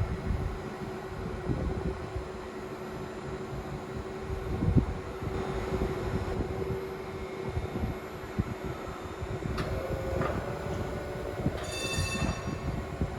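Tram running on its rails with a steady rumble and a held hum. A short, high ringing sound comes near the end.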